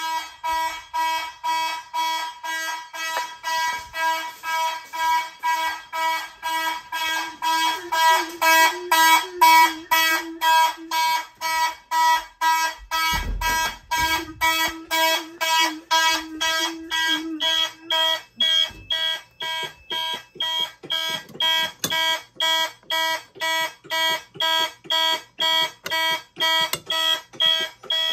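Several fire alarm horns of a home test system sounding together in alarm, after a pull station was pulled, in an even rapid pulse of about two to three beats a second.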